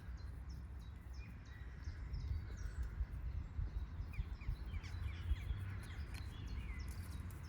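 Small birds chirping and calling with short, quick notes over a low wind rumble on the microphone.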